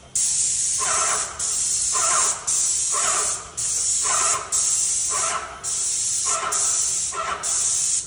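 Paint sprayer spraying black dryfall onto a metal HVAC duct in a series of trigger pulls: a hiss lasting about half a second to a second each time, with short breaks between them.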